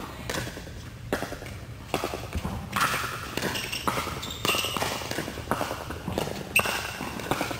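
Pickleball rally: paddles strike the hard plastic ball in sharp pops roughly once a second, ringing in a large indoor court hall. The loudest hit comes about six and a half seconds in.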